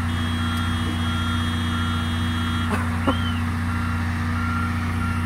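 Backup alarm of a John Deere 544K wheel loader beeping steadily as it prepares to reverse, over its diesel engine running. A short knock sounds about three seconds in.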